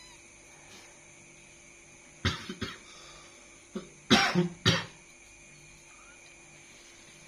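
Coughing: two short coughs a little over two seconds in, then a louder run of three or four coughs close together near the middle.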